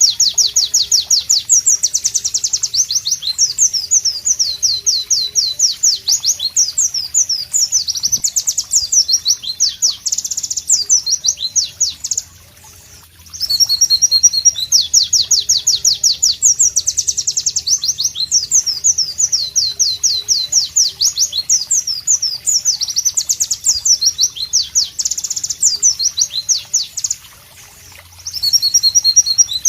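White-eye (pleci) singing a long, fast, high-pitched chattering song of rapid rising and falling notes. It comes in bouts of about twelve seconds, with a short pause about twelve seconds in and another near the end before the song starts again.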